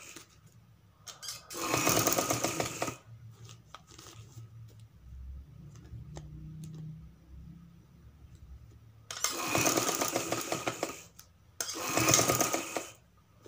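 Sewing machine stitching in three short runs of fast needle rattle, each a second or two long, with quiet pauses between while the fabric is repositioned.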